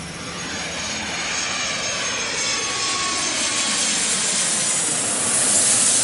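Jet aircraft passing close by: a steady rush of engine noise that grows louder, peaks near the end and starts to fade, with whining tones sliding down in pitch as it goes.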